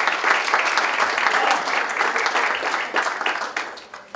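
Audience applauding, many hands clapping, thinning out and fading near the end.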